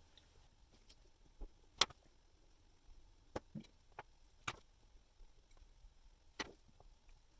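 Faint, sharp clicks and taps at irregular intervals, about eight in all, from watchmaker's metal tools against the small parts and screws of a watch movement during reassembly.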